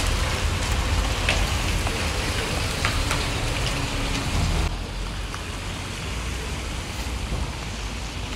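Steady rain falling on a wet street, with a few sharp ticks in the first half; the sound drops to a quieter level a little past halfway.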